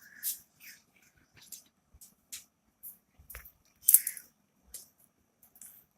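Scattered light clicks and rustles of small objects being handled, with a sharper click about four seconds in.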